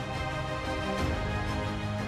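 Programme closing theme music: held chords over a deep bass, with an accent hit about a second in.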